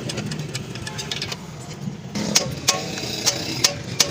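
Several sharp metallic clinks and knocks of hand tools against metal parts during steering rack work, coming irregularly in the second half, over a steady low workshop hum.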